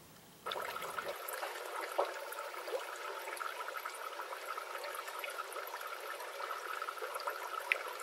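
Running water, steady and rushing, with scattered small ticks and pops, starting abruptly about half a second in.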